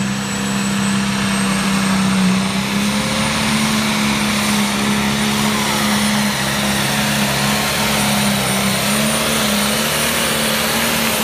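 Pulling tractor's turbocharged diesel engine held at full throttle while dragging a weight-transfer sled, a loud steady engine note under a high, steady turbo whistle.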